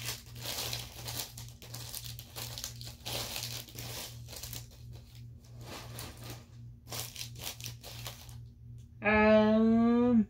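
Wrappers and papers being rummaged through, crinkling and rustling in irregular bursts. Near the end a man hums one steady note for about a second.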